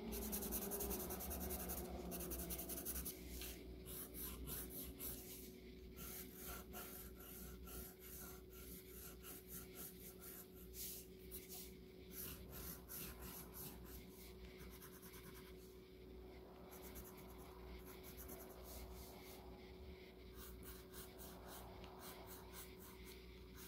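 Colored pencil scratching on paper in many quick, short shading strokes, faint.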